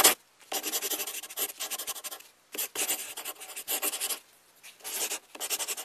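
Black marker tip rubbing across paper in several drawing strokes, each up to about a second and a half long, with short pauses between.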